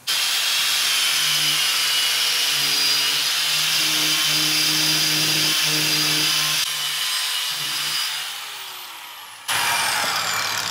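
Milwaukee 4-1/2-inch angle grinder running a wire brush against rusty metal, a loud steady whir of the motor and the wire wheel. It starts suddenly, eases and fades away about nine seconds in, then starts up again near the end.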